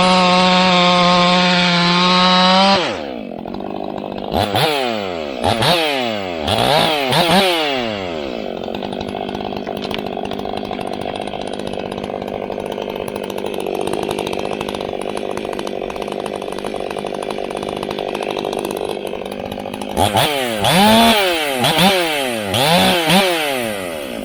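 Ported Stihl 500i fuel-injected two-stroke chainsaw running flat out at a steady high pitch, held down in a cut, then dropping suddenly to idle about three seconds in. Its throttle is blipped several times, the pitch rising and falling; it idles for a long stretch, then is revved in another series of quick blips near the end.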